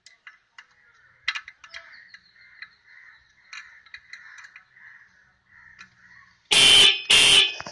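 Small metal clicks and scrapes of a screwdriver and spanner on a motorcycle disc horn's adjusting screw. Near the end come two short, loud blasts of the electric disc horn, sounding again now that its adjusting screw is set.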